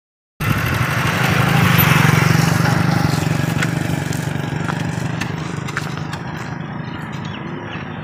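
Motorcycle engine running steadily, cutting in abruptly about half a second in, loudest around two seconds in and then slowly fading.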